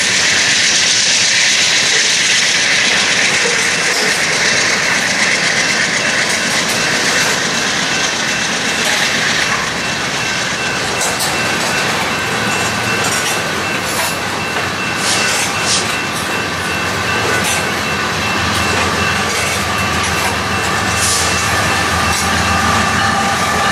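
Real BNSF freight train rolling past at trackside: steel wheels on rail with a clickety-clack and some wheel squeal. The high squeal eases off about ten seconds in, and a deeper diesel engine hum comes up in the last few seconds.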